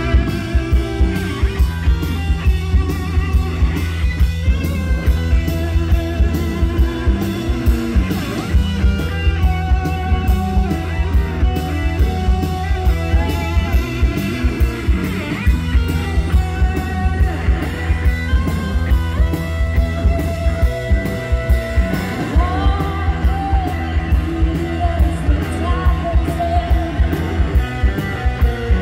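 Live rock band playing: drum kit keeping a steady beat, with electric guitar, bass guitar and keyboard.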